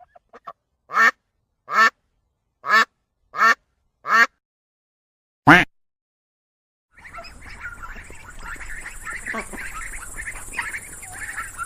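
A duck quacking: five quacks at an even pace, then one sharper single quack. After a short pause, about seven seconds in, a flock of ducks quacking and chattering together over a steady background hum.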